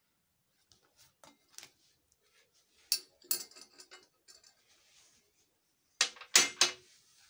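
Sharp clicks and clinks of things being handled on a glass-topped table, including a metal nail set down on a ceramic plate. A few light taps come first, then louder clinks about three seconds in and a quick run of three near the end.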